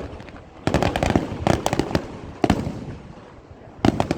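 Aerial fireworks going off: a quick run of sharp bangs about a second in, a single bang near the middle, and another run near the end, each with an echoing tail.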